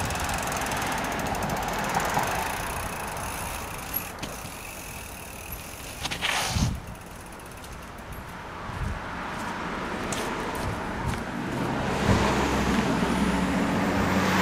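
Rockrider AM 100 S mountain bike ridden over rough ground, rattling, with a brief louder rush of noise about six seconds in. A steady low hum comes in near the end.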